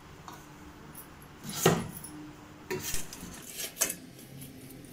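Stainless steel bowls clinking and scraping together as an upturned bowl is set down as a lid over another bowl: one louder clatter about a second and a half in, then a few lighter knocks.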